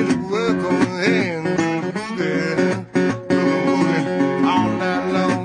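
Background song with acoustic guitar and a voice singing.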